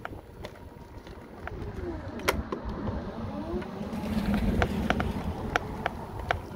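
An SUV drives past close by, the sound of its engine and tyres swelling to a peak about four to five seconds in and then easing off. Sharp clicks come every second or so throughout.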